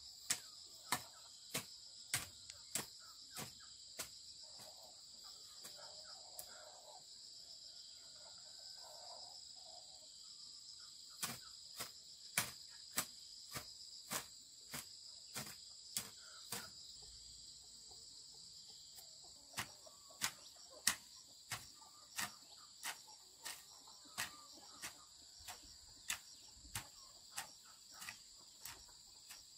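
A hand hoe chopping into weedy ground in runs of regular strikes, about one and a half a second, stopping twice for several seconds. Under it, a steady high chirring of crickets.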